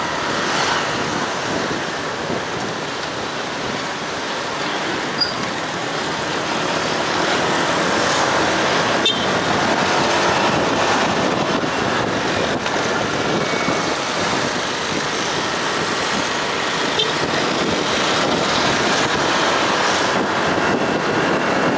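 Steady rush of wind and road noise while riding a motor scooter in traffic, with the scooter's small engine running underneath.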